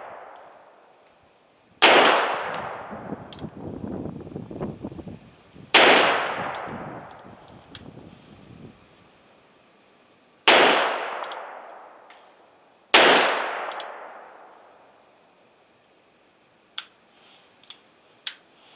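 Four shots from a North American Arms Companion .22 black-powder cap-and-ball mini revolver, a few seconds apart, each ringing out and dying away over about two seconds. A rumbling noise follows the first shot, and a few faint clicks come near the end.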